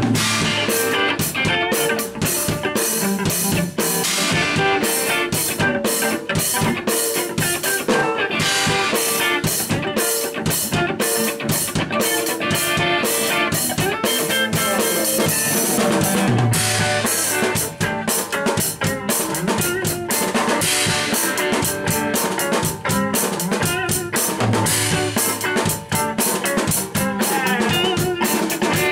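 Instrumental music with a steady drum-kit beat, rimshots and guitar.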